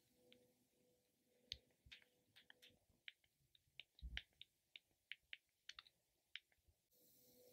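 Thumbs pressing the keys of a cell phone's QWERTY keypad while typing a text: quiet, irregular clicks, several a second. A heavier soft thump comes about four seconds in, over a faint steady hum.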